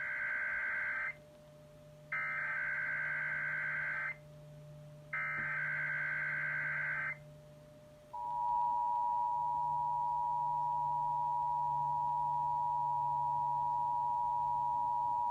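Emergency Alert System header over broadcast radio: the end of one burst of SAME data tones, then two more harsh, buzzing data bursts of about two seconds each, a second apart. About eight seconds in, the steady two-tone EAS Attention Signal (853 and 960 Hz together) starts and holds.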